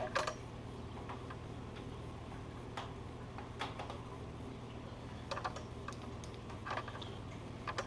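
A few scattered light clicks and taps from small objects being handled, over a steady low hum.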